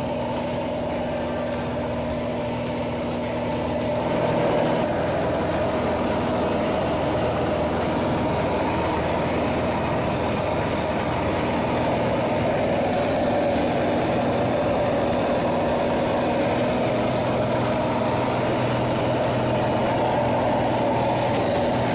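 Light aircraft's piston engine and propeller running steadily, heard from inside the cockpit under the canopy, with rushing air noise. It grows louder about four seconds in.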